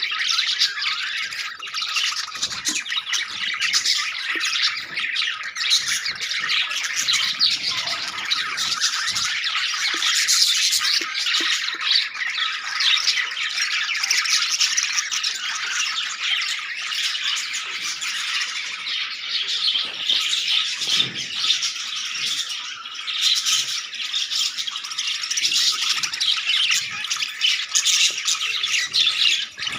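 A flock of caged budgerigars chattering, with many overlapping chirps and squawks that never let up.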